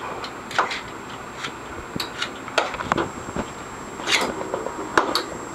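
Battle spinning tops clashing in play, giving irregular sharp clicks and knocks as they strike each other.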